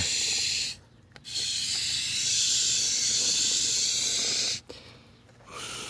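Aerosol can of expanding foam sealant hissing as foam is sprayed into gaps between waterfall rocks to seal leaks. It comes in two bursts, a short one and then a longer one of about three seconds, with a fainter hiss near the end.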